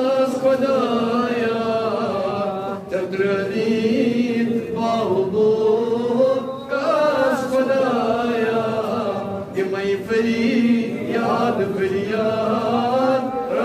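A man's voice chanting a devotional munajaat in a slow, melodic recitation, holding and bending long notes, with short breaks for breath between phrases.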